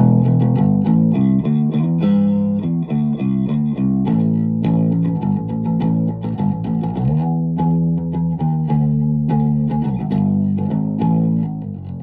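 Electric bass guitar played through an Orange Crush Bass 50 combo amp with a 12-inch speaker, on its clean tone: a bass line of plucked notes with a sliding note about seven seconds in. The tone is clean and punchy.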